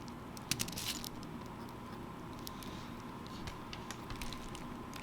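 Small clicks and ticks of a precision screwdriver and tiny screws being worked into an opened iPhone 7 Plus, with a quick cluster of ticks about half a second in and sparser ones after, over a faint steady hum.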